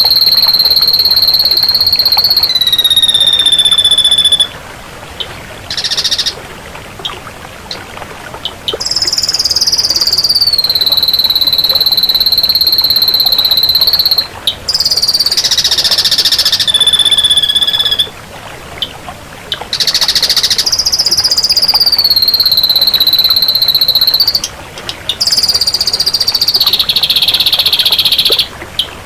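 Ashy drongo song: long, high, buzzy notes, each held for several seconds and often stepping down in pitch near its end. Short pauses between them hold brief harsh, rapidly pulsed calls.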